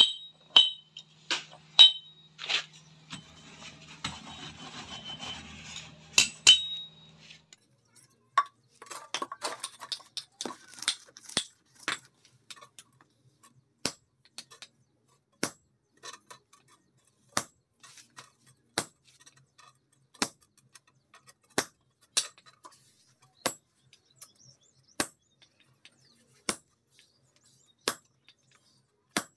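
Hand hammer striking a hot-cut chisel held on a red-hot iron plate on a steel anvil block, each blow a sharp ringing clink. The first blows come irregularly, then a run of light quick taps, then steady single strikes about every second and a half as the chisel cuts into the hot iron.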